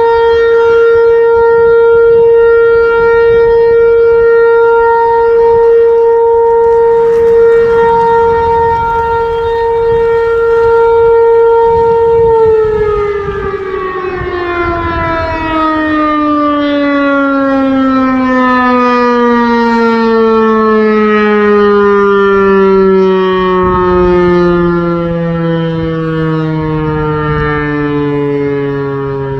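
Outdoor tornado warning siren sounding a loud, steady tone. About twelve seconds in it begins to wind down, its pitch falling slowly and smoothly for the rest of the time.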